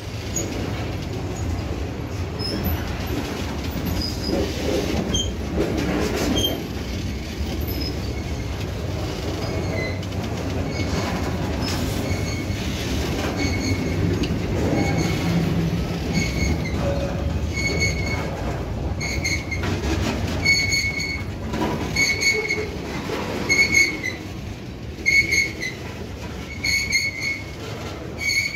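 Freight cars (covered hoppers and tank cars) rolling slowly past close by, with a steady low rumble of steel wheels on rail and a few sharp clicks. From about halfway on, a high metallic wheel squeal comes and goes about once a second.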